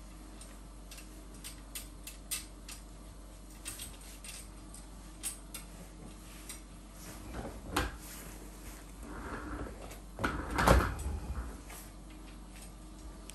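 Small clicks and taps from parts of a Jolly Jumper baby-jumper stand being handled during assembly, with a louder knock about eight seconds in and a longer, louder spell of clattering and rubbing around ten to eleven seconds in.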